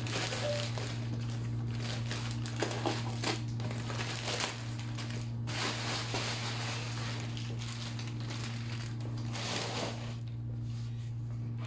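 A delivery parcel being unpacked by hand: packaging crinkling and rustling in bouts, with scattered sharp clicks, over a steady low hum.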